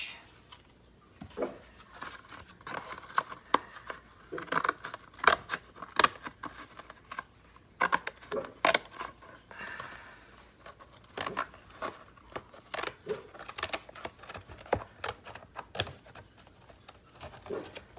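Paper and packaging being handled and worked at a craft table: irregular crisp clicks and rustles, some sharper and louder than others.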